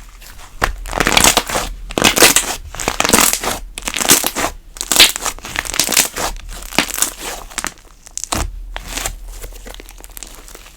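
Cream slime being squished, pressed and pulled by hand: a run of noisy squishes one after another, quieter in the last few seconds.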